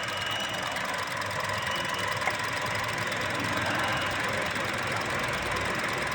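Car engine idling with a misfire, which the mechanic puts down to a faulty number-two ignition coil.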